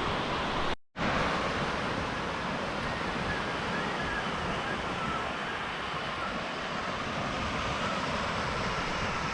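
Steady wash of surf on an ocean beach, with some wind on the microphone. The sound cuts out for a moment about a second in.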